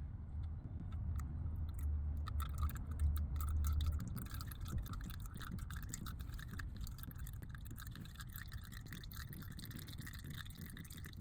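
Engine oil running through the engine in a flush, heard as an uneven trickle with many small ticks, with a low rumble over the first four seconds.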